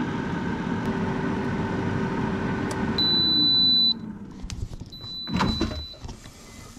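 Electric air fryer's fan running steadily, then a long beep about three seconds in as the timer ends, with the fan winding down. A second, fainter beep and a few knocks follow near the end.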